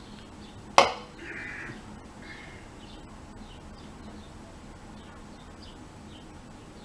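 An aluminium drink can set down on a wooden tabletop: one sharp clack about a second in, followed by a brief breathy rasp. Faint high chirps sit in the background.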